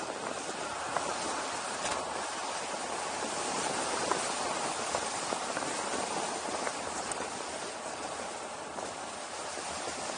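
Steady rushing noise of wind and road going past a camera on a windy descent at speed, with a few faint ticks.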